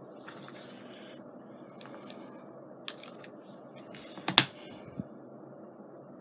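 Light, scattered clicks and taps of small craft pieces and tools being handled on a tabletop, with the loudest a sharp knock about four seconds in, over a steady low background hum.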